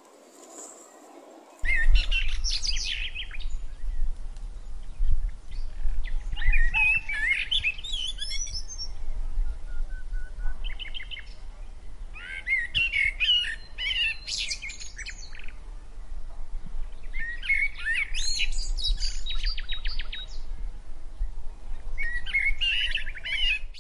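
Waterfall rushing for the first second and a half, then songbirds singing in short, varied warbling phrases every few seconds, one a quick trill of repeated notes, over a steady low rumble.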